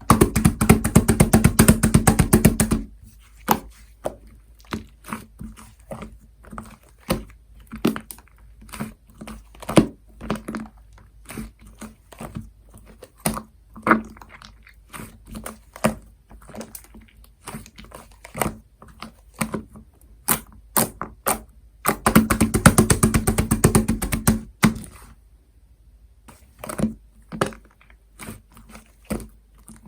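Mixed cotton-candy slime being worked by hand: two stretches of fast, dense sticky clicking and popping, one at the start and one about three-quarters through, with separate pops and clicks between as the slime is pressed and pulled.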